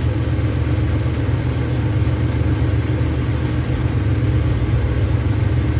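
A steady low mechanical drone, unchanging throughout.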